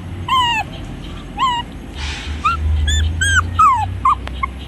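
Two-month-old Shih Tzu puppy whimpering in a run of short, high, whining yelps, about eight of them, with a short pause and a brief rustle around two seconds in.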